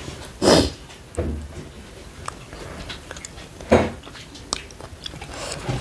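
Person eating rice and greens by hand from a steel plate: chewing and small mouth and finger sounds, with two loud, short mouth noises about half a second in and just under four seconds in.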